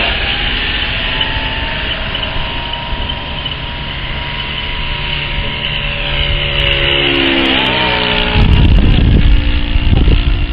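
O.S. FS-120 four-stroke glow engine of an RC P-47 Thunderbolt model, spinning a four-blade propeller, running steadily, its pitch shifting about two-thirds of the way through. A loud low rumble sets in about eight seconds in.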